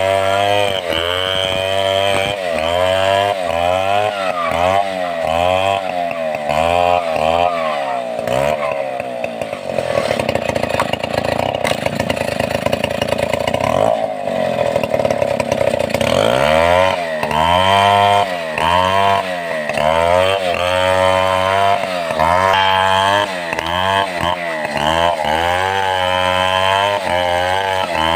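Stihl 070 two-stroke chainsaw cutting a log into a beam, its engine speed rising and falling over and over as the chain bites. For several seconds in the middle it holds at a high, steady pitch before the surging resumes.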